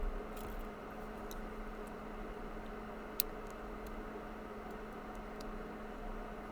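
Steady background hum with a few faint, small clicks and one sharp tick about three seconds in, from tweezers handling the tiny pins and springs of a pin-tumbler lock.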